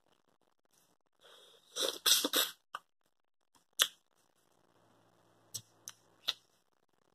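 Close-miked eating mouth sounds while eating mussels. About two seconds in comes a loud, noisy rush of several quick pulses. After it there is a single sharp click, then three short smacks as fingers are licked.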